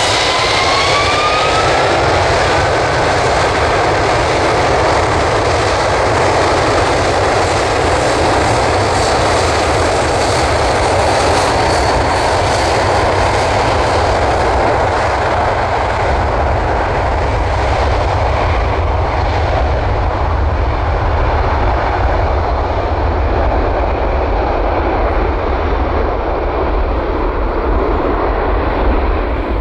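Boeing 747-400F's four Rolls-Royce RB211-524G/H-T turbofans spooling up to take-off thrust, a rising whine over the first few seconds, then a steady loud jet roar through the take-off roll. From about halfway on the high hiss fades and a deep rumble dominates as the freighter moves away.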